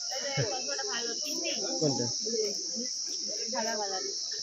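A steady, high-pitched insect chorus that never breaks, with the chatter of many voices in a crowd beneath it.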